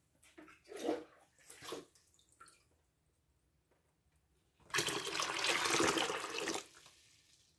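Water poured into a plastic tub, a steady rush of about two seconds starting a little past halfway through. Two short sounds come before it, about one and two seconds in.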